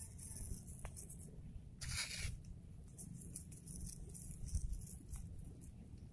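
Faint outdoor ambience: a steady low rumble with scattered soft ticks and a brief rustle about two seconds in.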